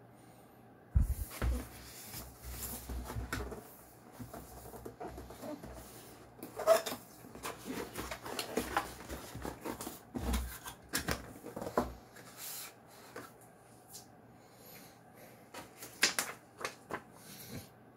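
A cardboard keyboard box being opened by hand: flaps and inner tray scraping and sliding, with a few knocks and thumps. A paper manual is handled near the end.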